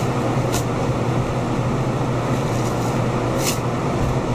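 Steady loud mechanical hum with a rushing noise behind it, broken by two brief high scrapes, one about half a second in and one near the end.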